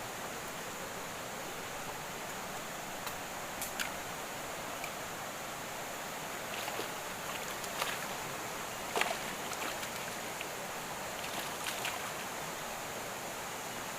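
Steady rush of a flowing upland river, with a few sharp clicks scattered through it, the loudest about nine seconds in.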